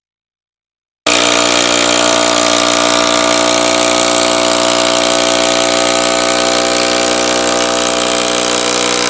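Cordless impact driver hammering steadily at its fastest speed, driving a 250 mm sleeper screw into a wooden sleeper. It starts suddenly about a second in and holds an even, unchanging note.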